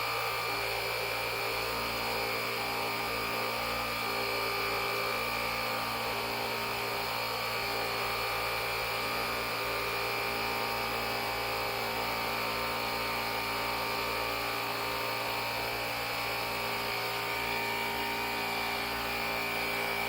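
The JIYHF portable jump starter's built-in 150 PSI air compressor running steadily while inflating a car tyre, a constant, even motor drone with a steady hum.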